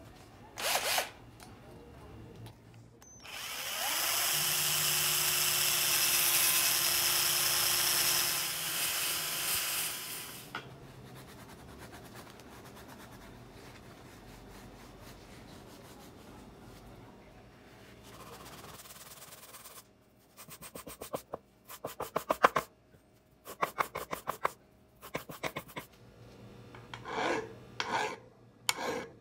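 A small power tool runs for about six seconds with a steady hum, working on the old hammer head. Then comes a long stretch of quieter rubbing, as with a hand abrasive pad. Near the end there are quick runs of rasp or file strokes on wood.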